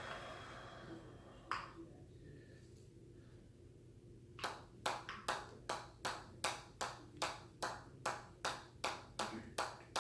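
Steady train of light sharp strikes, about two and a half a second, each with a short ring, starting about four and a half seconds in after a single tap.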